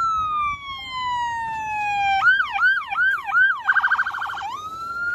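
Police vehicle's electronic siren switching modes: a slow falling wail, then about two seconds in a quicker yelp that rises and falls four times, a very fast warble for under a second, and back to a slow rising wail.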